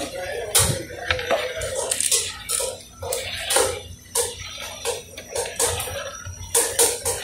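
A long metal utensil stirring macaroni in a large aluminium pot of steaming water. The water sloshes, and the utensil scrapes and knocks against the pot at irregular intervals.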